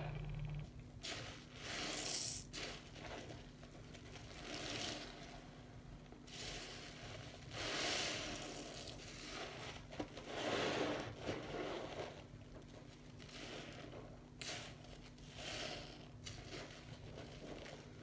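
Soap-soaked sponges squeezed and scrunched by hand in sudsy water: wet squishing in irregular bursts, loudest about two seconds in.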